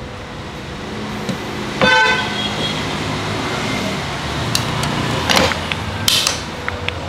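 A short vehicle horn toot about two seconds in, over the noise of passing road traffic, with a few sharp clicks and knocks later on.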